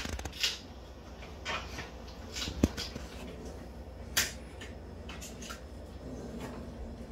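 American Bully puppies chewing on baked pork ears: scattered soft crunches and clicks, with one sharper click a little after two and a half seconds in.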